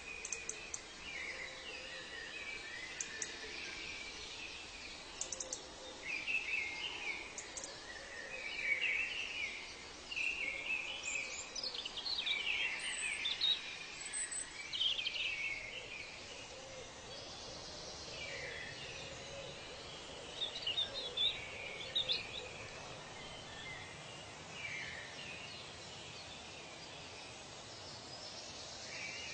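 Wild birds chirping and calling in short phrases that sweep up and down in pitch, coming every second or so and busiest through the middle, over a steady faint background hiss.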